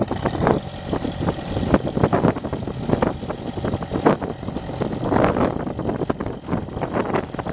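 The 76 hp Deutz diesel engine of a Vermeer RT650 trencher running steadily at idle, with irregular louder surges.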